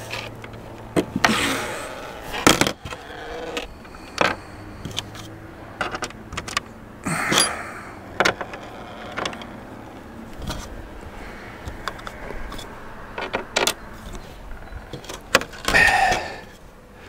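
Steel Allen key clicking and scraping against hex socket screws as it is set in and turned a little at a time, over and over, tightening the screws into a metal mounting bracket. Scattered sharp metal clicks, with a few short rushes of breathy noise, the loudest near the end.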